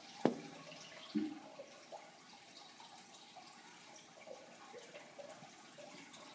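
Black plastic bucket knocked about on the grass by a puppy pushing it with its head: two sharp knocks about a second apart, the second with a short ringing tail, then only faint scuffling.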